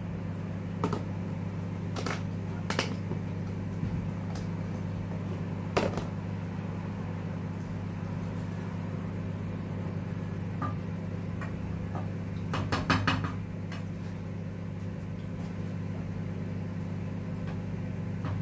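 Steady low hum of a kitchen appliance running, with scattered clicks and knocks of pans and utensils being handled, including a quick run of them about two-thirds of the way in.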